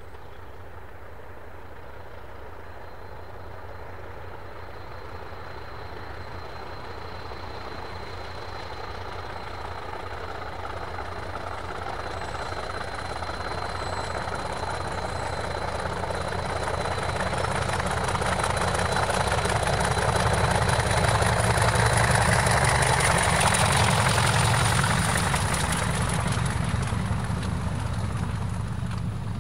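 Convoy of diesel locomotives led by Class 40 D345, engines running under load as the train approaches. It grows steadily louder to a peak a little over twenty seconds in as it passes, then fades, with a thin high whine over the deep engine rumble.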